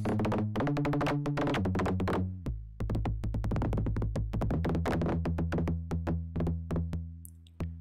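Make Noise Dual Prismatic Oscillator in a Eurorack modular synth, struck by randomly spaced gates that Maths derives from noise by acting as a comparator. A fast, irregular patter of sharp electronic hits plays over a low synth drone that steps in pitch a few times, and it fades out near the end.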